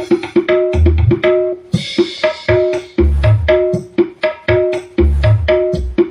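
Loud drum-led music played through 12-inch speakers driven by a home-built 800-watt power amplifier under test: quick tuned hand-drum strokes, deep bass hits every couple of seconds, and a short cymbal-like hiss about two seconds in.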